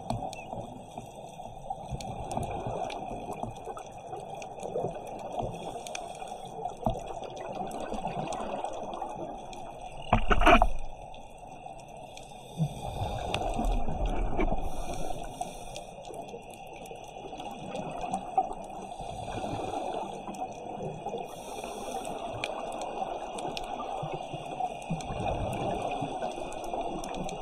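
Underwater ambience of a scuba dive: a steady watery hiss with the gurgle of divers' exhaled regulator bubbles swelling and fading. There is one brief loud burst a little after ten seconds in, and a longer swell of bubbling from about thirteen to fifteen seconds.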